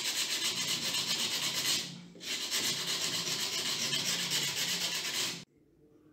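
Sandpaper rubbed by hand in quick back-and-forth strokes against the neck of an old copper candlestick, a dry scratching. It breaks off briefly about two seconds in, starts again, and stops suddenly near the end.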